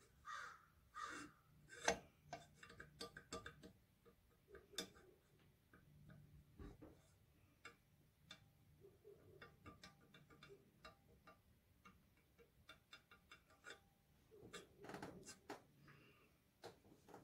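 Faint, irregular light metal clicks and taps from an intake valve being slid in and out of its guide and set against its seat in the cast-iron cylinder head of a 1923 International Type M engine, with a few sharper taps among them.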